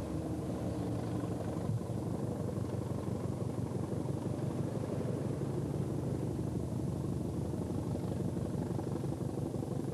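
Class 206 'Tadpole' diesel-electric multiple unit's diesel engine running steadily as the train pulls away from the platform: a low, even rumble.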